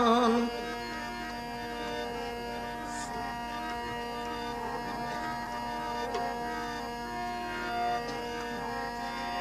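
Devotional bhajan music: a male singer holds the last word of a line, which ends about half a second in, then instrumental accompaniment carries on with sustained melodic notes and tabla.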